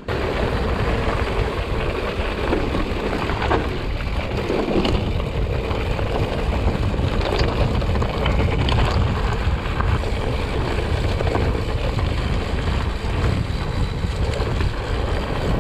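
Wind buffeting the camera microphone of a mountain bike ridden at speed on a dirt trail, a steady rumbling rush with a few brief knocks from the bike over bumps.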